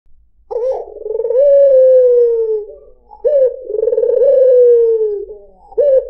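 White ringneck dove (puter) cooing: two long rolling coos, each rising quickly and then sliding slowly down in pitch, with a third beginning near the end.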